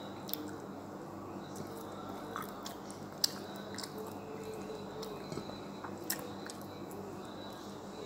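A person chewing a mouthful of crab meat with soft, wet mouth sounds, broken by scattered small clicks and smacks, the sharpest about three seconds in.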